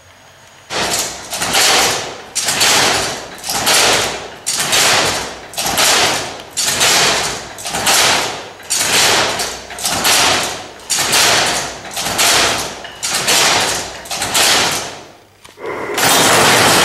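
Hand-cranked loom being worked at about one turn a second: a noisy stroke with each turn that starts sharply and dies away, about fourteen in a row. Near the end a steady, louder clatter of an automatic weaving machine running takes over.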